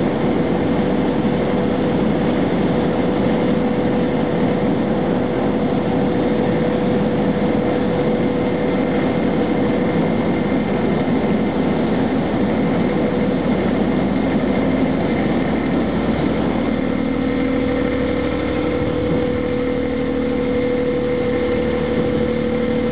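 Freight train running across a steel truss bridge: a steady heavy rumble with a constant hum through it, a few more steady tones joining it about two-thirds of the way in.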